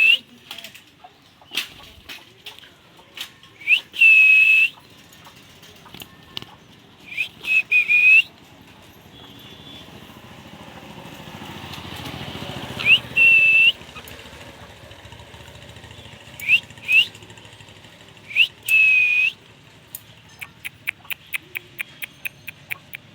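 Pet parrot whistling in bouts: short rising whistles and longer held whistles at one high pitch. Near the end there is a fast run of short ticks.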